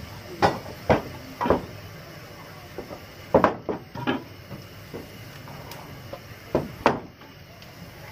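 Wooden logs of fuel being thrown into a steam locomotive's firebox, knocking and clattering against the firebox door and floor. There are about eight sharp knocks in three clusters, over a steady background.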